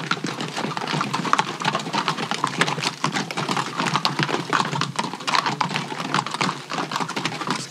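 Hooves of a string of pack animals clopping along a trail: a dense, irregular run of sharp clicks and knocks.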